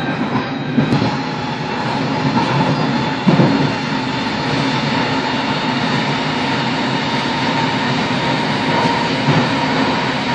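Moving passenger train heard from inside the carriage: the steady rumble and rush of the train running on the rails, with a faint steady whine and a brief knock about three seconds in.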